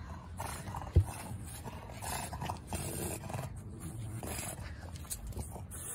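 Low, roar-like growling and scraping, with one sharp thump about a second in.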